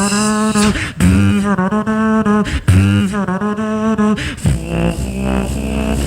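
Tag-team beatboxing: held, pitched vocal tones over deep vocal bass notes, in a phrase that repeats about every one and a half seconds, turning to a wobbling, buzzy sound in the last second or two.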